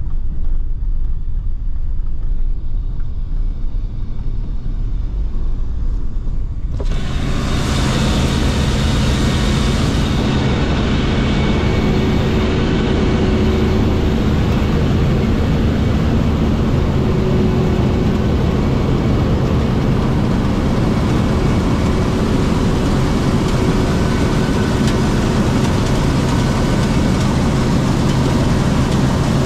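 Diesel engine of a heavy farm machine running steadily. For the first several seconds only a low rumble is heard; about seven seconds in the sound suddenly becomes fuller and brighter and stays that way.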